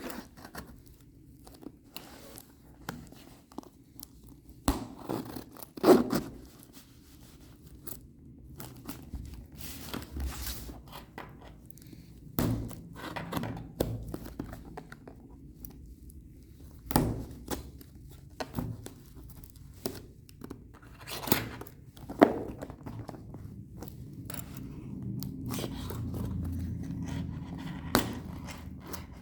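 Small cardboard boxes and plastic packaging from an electronics kit order being handled and opened: an irregular string of knocks, clicks and scrapes, with the two loudest knocks about six seconds in and about twenty-two seconds in.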